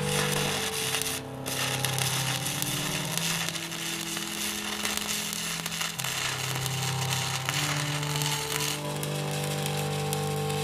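Stick welding arc crackling and sizzling as the electrode burns, with a short break about a second in. Background music of slow held notes plays underneath.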